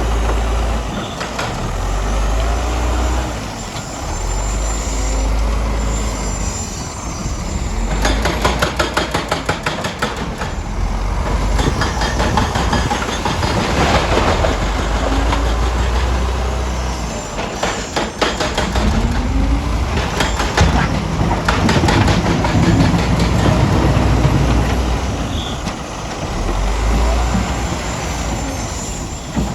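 Heavy earth-moving machinery working: a diesel engine running with a deep rumble that rises and falls with load, and metal clanking and rattling, with a burst of rapid clattering about eight to eleven seconds in.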